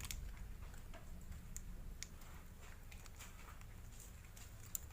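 Scattered light clicks and ticks from a small plastic lure package being handled, about eight in all with a sharper one near the end, over a faint steady low hum.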